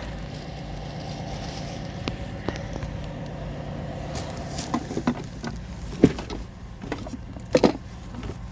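Handling noises, a few sharp clicks and knocks spaced a second or more apart, over a steady low hum.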